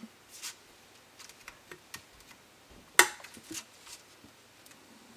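A hobby knife cutting laser-cut parts free of their sheet by the small tabs: light scrapes and scattered clicks of the blade on the sheet and board, with one sharp click about three seconds in.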